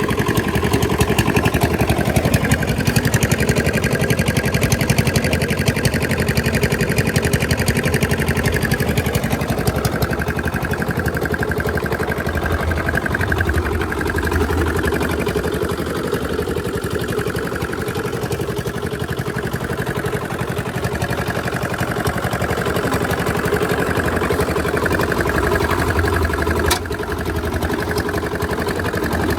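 A machine's engine running steadily at one speed with a fast, even chugging. There is one sharp click near the end, after which it is slightly quieter.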